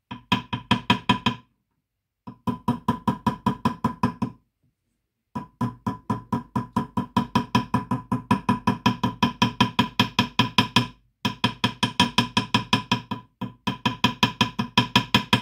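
Small metal hammer tapping quickly on a silver ring fitted over a tapered steel ring mandrel, about seven light ringing taps a second in five runs with short pauses, the mandrel ringing at a steady pitch under the blows. The taps are hammering out a kink in the ring's shank.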